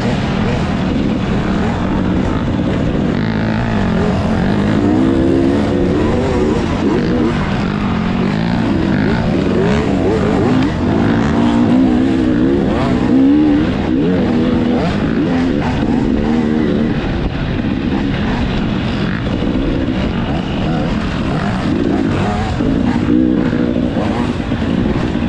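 Dirt bike engine racing along an off-road trail, heard from the rider's own bike, its revs rising and falling again and again as the rider throttles and shifts.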